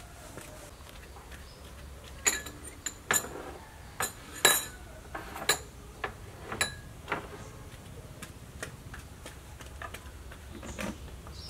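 Kitchenware being handled: a run of about ten sharp clinks and knocks of dishes and utensils, starting about two seconds in and lasting some five seconds, then settling back to a low background.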